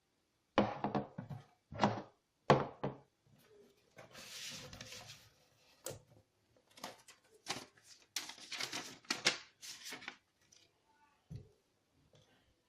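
Handling noise from unpacking a boxed action camera: irregular knocks, thunks and clicks, with a rustle of packaging about four seconds in.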